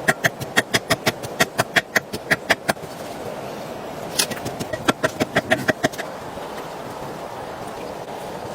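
A quick run of sharp knocks, about four a second, a pause with a short hiss, then a second, shorter run of knocks, over a steady background hiss.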